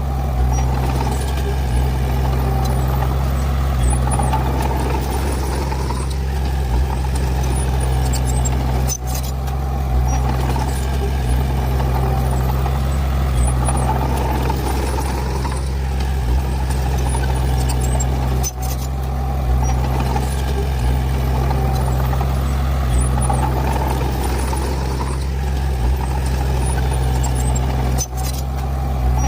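Heavy diesel earth-moving machinery running steadily, a low engine drone with brief dips about every nine and a half seconds.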